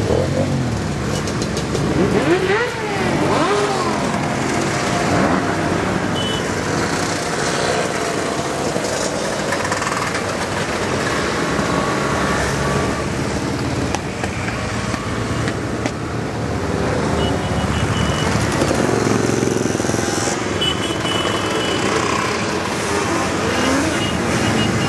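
A steady procession of many motorcycles and scooters riding past, their mixed engines running together, with some engines rising and falling in pitch as they pass close by, most clearly a few seconds in.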